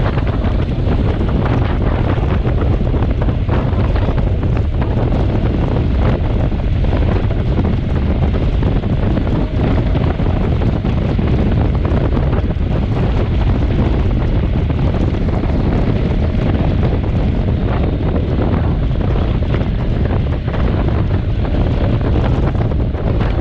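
Wind rushing over the microphone of a camera on a motorcycle riding at about 60 km/h: a loud, steady rumbling rush, strongest in the lows, with no clear engine note.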